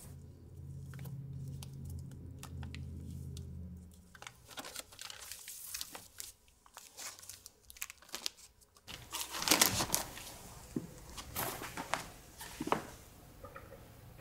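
Vinyl LP jackets being flipped through in a record crate, a run of light cardboard clicks and taps, then a record pulled out with a louder rustle and crinkle of paper and cardboard sleeves about nine seconds in. A low steady hum underlies the first few seconds.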